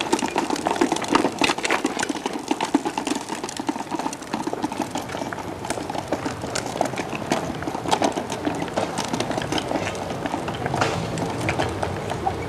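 Hard plastic wheels of a child's tricycle rolling over brick block paving: a steady rattling clatter of many small clicks.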